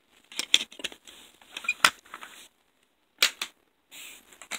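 A CD and its plastic jewel case being handled by hand: a few sharp plastic clicks and snaps, the loudest just under two seconds in, with light rustling near the end.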